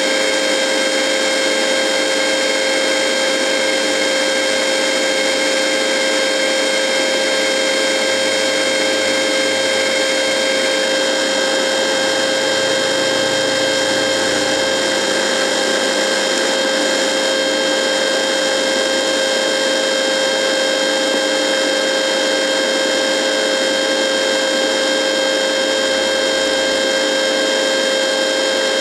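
Radio buzzing: a steady electrical buzz of several fixed tones, the strongest a mid-pitched one, over an even hiss of static.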